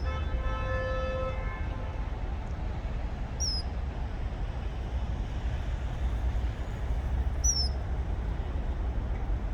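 Common kingfisher giving short, high, shrill whistled calls, two of them about four seconds apart, the male calling to a mate. In the first two seconds a held horn-like tone sounds for about a second and a half, over a steady low rumble.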